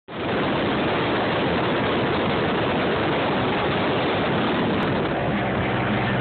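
Motorboat running at speed across open water: a steady rush of wind and water noise, with the engine's even hum coming through more clearly near the end.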